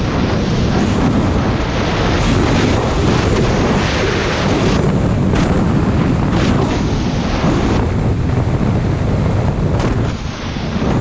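Snowmobile engine running at speed, mixed with heavy wind buffeting on the microphone; the level drops briefly about ten seconds in.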